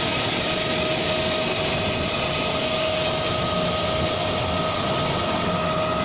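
Concrete mixer pump running steadily, a constant mechanical drone with a steady high whine over it.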